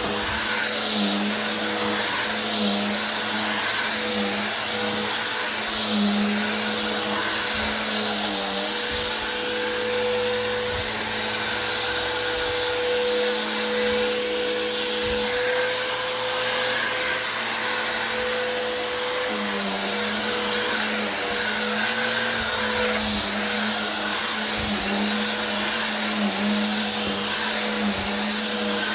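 Bissell vacuum cleaner running steadily, its motor hum with a high whine on top, the pitch shifting a little now and then as it works.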